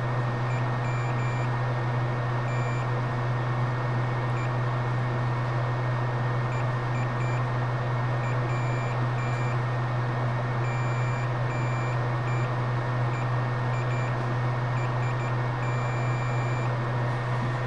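Digital multimeter continuity beeper sounding in short, irregular beeps that come and go as the probes make contact across a jumper wire on a laptop logic board, with a longer beep near the end; the beep signals that the repaired trace has continuity. A steady low hum and hiss sits underneath and is louder than the beeps.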